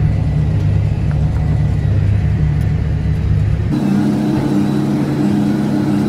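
Farm tractor engine running steadily, heard from inside the cab. About three and a half seconds in the sound cuts to a steady hum with a higher engine note as the tractor pulls a working Case IH round baler.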